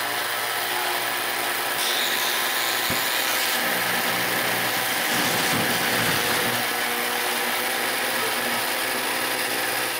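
Over-volted vacuum cleaner motor running flat out with a loud, steady rushing noise as it burns out.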